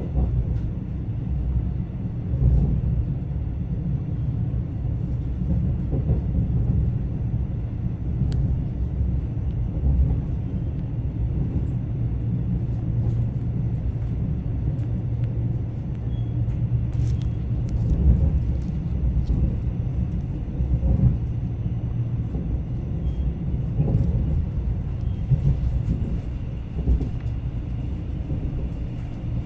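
Steady low rumble of a passenger train running on the rails, heard from inside the carriage, with a few soft knocks scattered through it.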